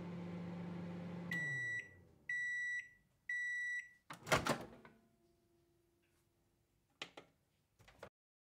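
Microwave oven sound effect: the oven's running hum winds down, then three high-pitched end-of-cycle beeps sound about a second apart. A louder clunk follows, then a faint tone and two short clicks near the end.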